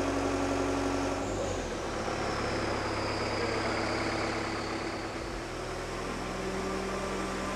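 Aircraft towing tractor running steadily while moving slowly under load, with a faint high whine that slides gently down in pitch over a few seconds.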